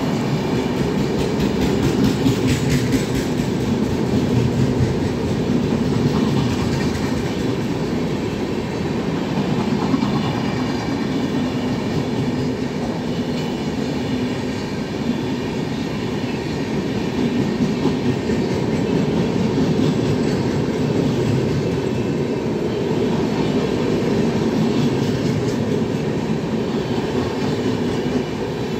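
Passenger coaches of an Indian Railways express train rolling past close by: a steady, loud rumble of steel wheels on rail with scattered clicks from the wheels.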